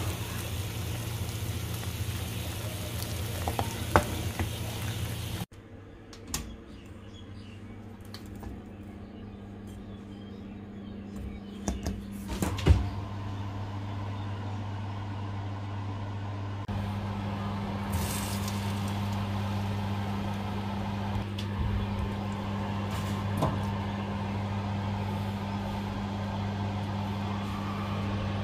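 Steady low electric hum of a running oven, with a few sharp clinks and knocks of a metal baking tray being handled, the loudest about halfway. The first few seconds hold a noisier hiss over the hum.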